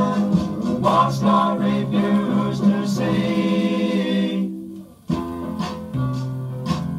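Late-60s/early-70s-style progressive rock played from a 7-inch acetate record: held sung vocals over guitar, breaking off briefly about five seconds in, then strummed guitar chords come back.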